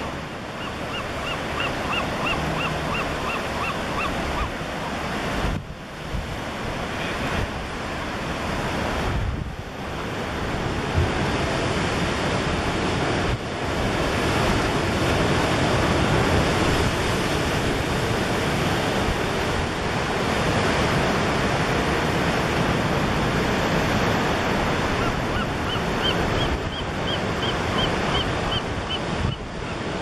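Surf breaking and washing over the rocks below a sea cliff, a steady rush of water with wind on the microphone. Twice, near the start and again near the end, a bird gives a quick series of high peeping notes, about four or five a second.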